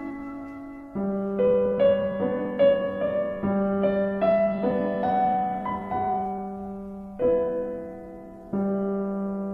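Background piano music: slow, soft notes struck one after another over a held low note, each ringing and fading.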